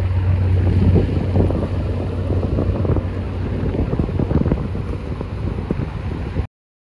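Steady low engine drone of the suction dredger Britannia Beaver passing close, with wind buffeting the microphone in gusts. The sound cuts off abruptly near the end.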